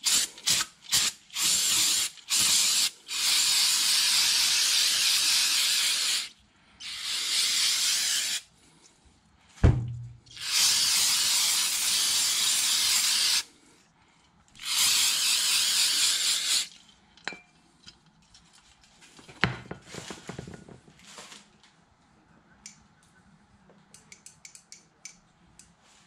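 Aerosol brake parts cleaner spraying onto an automatic transmission valve body in bursts. It starts with a quick string of short squirts, then four longer sprays of two to three seconds each, with a single thump about ten seconds in. After the last spray, around seventeen seconds in, only faint clicks of handling remain.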